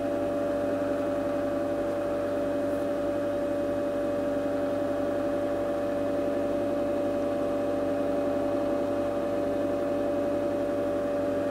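Cooling fan of a Systron Donner Model 7015 frequency counter running with a steady hum.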